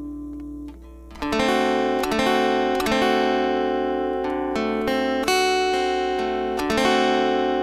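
Acoustic guitar strumming seventh chords in the open D shape (D7): a chord rings and fades, then several fresh strums starting a little over a second in, each left to ring.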